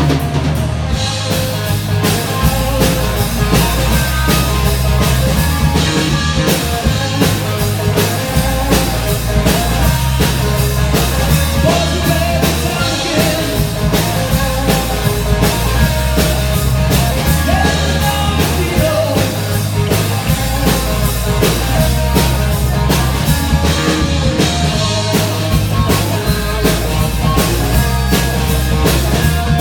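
Rock music with a steady drum-kit beat and bass.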